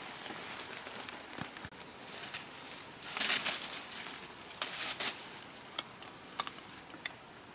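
Leafy shrub branches rustling and twigs snapping as they are pulled and fruit is picked by hand, with a loud rustle about three seconds in and a few sharp snaps after.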